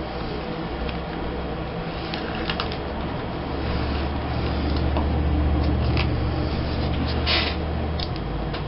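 Paper and scrapbook materials being handled on a table: scattered short rustles and light taps. Under them runs a low steady hum that swells for a few seconds in the middle, then drops back near the end.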